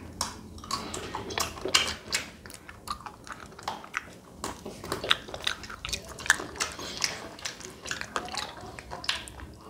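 Close-up wet mouth sounds of children eating Magnum chocolate-coated ice cream bars: licking, sucking and lip smacks, with many short irregular smacks.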